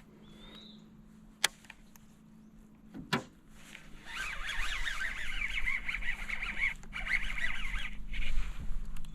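Birds calling, many quick overlapping chirps starting about four seconds in and going on for several seconds, over a steady low hum. Earlier there is a single short chirp, a sharp click and a knock.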